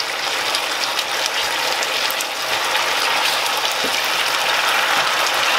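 Chicken pieces sizzling steadily in a frying pan as the masala sauce cooks down and starts to brown, with scattered small crackles and light scraping from a wooden spatula stirring them.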